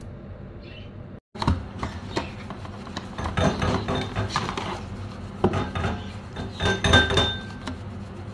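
Plastic coffee cup and its cardboard box being handled: irregular clicks, knocks and scraping as the cup and its lid are pulled out of the box, with a brief squeak near the end.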